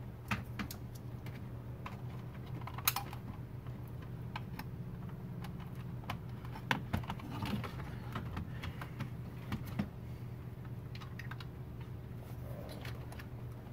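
Scattered clicks and light knocks of a plastic center-console housing and its loose wiring being handled and tucked into place, over a steady low hum.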